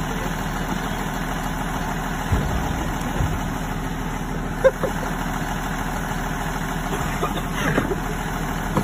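Yellow school bus engine idling with a steady low hum, with one short knock a little past the middle.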